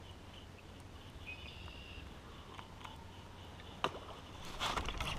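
Quiet water with a single sharp click just under four seconds in, then a sudden burst of splashing near the end: a bass striking at a topwater frog lure on the surface and missing it.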